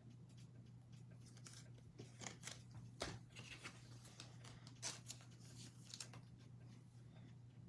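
Faint clicks and rustles of trading cards being handled and slid through the hands, a few sharper snaps about 3 s and 5 s in, over a low steady hum.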